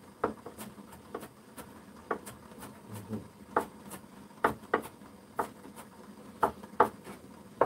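Kitchen knife mincing vegetables on a wooden cutting board: sharp, uneven knocks about one or two a second, some much louder than others.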